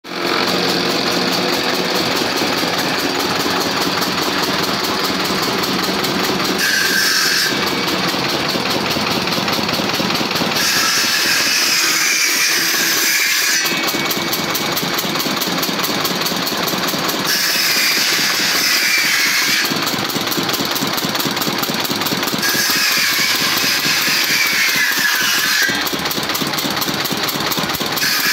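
Electric jointer-planer running with its cutter block spinning while wooden boards are fed across it and planed in repeated passes. The loud machine noise never stops, but its tone changes every few seconds as each board's pass begins and ends.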